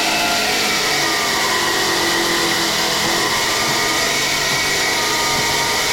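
An electric power tool's motor running loud and steady without a break, with a faint whine held high above it.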